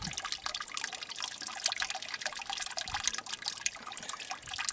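Muddy solution draining off the lip of a tilted wheelbarrow into a plastic tub of liquid: a steady, irregular patter of drips and small splashes.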